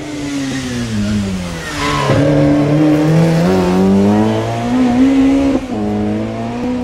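Rally car engine slowing for a hairpin, its note falling, then accelerating hard out of the bend with the revs climbing. There is a quick drop in pitch at an upshift about five and a half seconds in, and the revs rise again.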